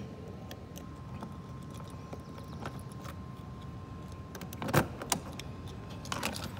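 Keys jangling and a key working the lock of a Honda Helix scooter's fuel-filler lid, with a sharp click a little before five seconds in, another just after, and a few lighter clicks near the end as the plastic lid unlatches and opens.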